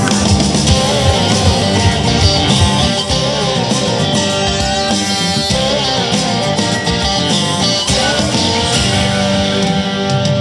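Background music: an instrumental stretch of a guitar-driven country-rock song with a steady beat.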